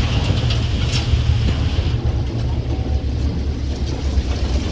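Steady low rumble of a pickup truck on the move, heard from its open cargo bed on a dirt track.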